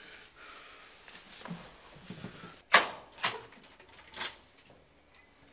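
Wooden door being unlocked and opened: some soft handling noise, then three sharp clicks and knocks from the lock and latch, the first the loudest.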